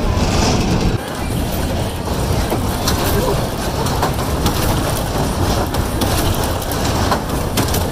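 Kiddie amusement rides running: a steady, loud rumble of ride machinery mixed with surrounding noise, changing abruptly about a second in.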